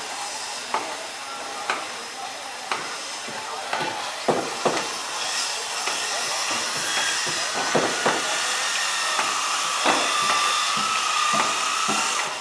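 Wooden boatyard work: sharp knocks of hammer blows on timber, about one a second at first, then irregular and harder, over a steady hiss. A thin steady whine comes in for the last few seconds.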